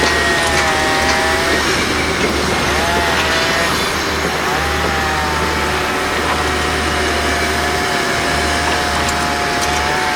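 Construction-site din: machinery running loudly and steadily under a dense wash of noise, with a low engine drone that drops out briefly now and then and a high whine that wavers and bends in pitch.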